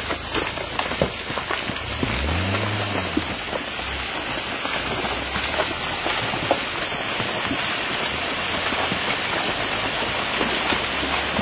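Steady rain falling, an even hiss scattered with many sharp drop ticks. A brief low tone rises and falls about two seconds in.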